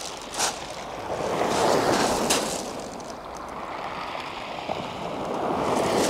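Surf washing onto the beach with wind on the microphone, the wash swelling about a second and a half in and again near the end, with a few short sharp ticks.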